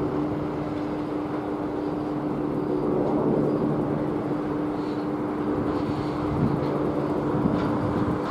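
EP2K DC electric locomotive hauling a passenger train as it approaches: a steady hum over the running noise of the train, growing a little louder about three seconds in.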